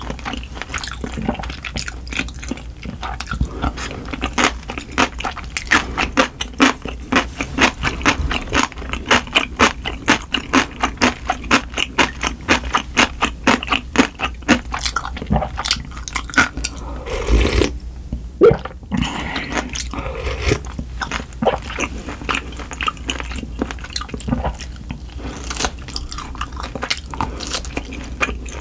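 Fast-forwarded close-up eating sounds of spicy cold buckwheat noodles and grilled oxtail: chewing and biting sped up into quick, evenly spaced clicks, about three a second, with a short break near the middle.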